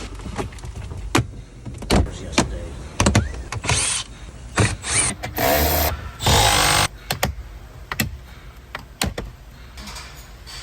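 Shop repair work: scattered clicks and clanks of tools and parts being handled, with two short, loud bursts from a power tool about halfway through.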